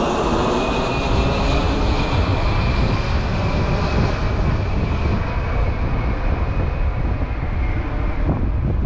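Airplane flying over, its engine tone slowly dropping in pitch and fading as it moves off, with wind rumbling on the microphone.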